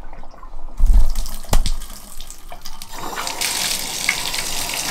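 Bathtub faucet turned on: two low thumps about a second in, then water running steadily from the tub spout into the tub from about three seconds in.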